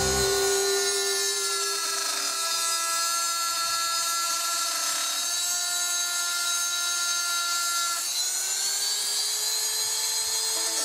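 High-speed rotary tool with a small bit cutting a slot into a thin wooden strip: a steady high whine whose pitch sags slightly now and then as the bit bites into the wood.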